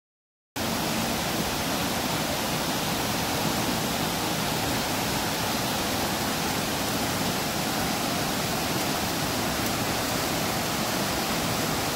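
A river in flood, its muddy water rushing over rocks as a steady, even roar of fast water that starts about half a second in.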